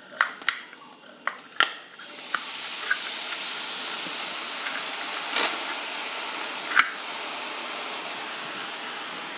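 Besan sev dough pressed from a metal sev maker into hot refined oil: a few sharp metal clicks in the first two seconds, then the oil begins sizzling steadily as the strands drop in and fry. Two louder knocks come through the sizzle near five and a half and seven seconds.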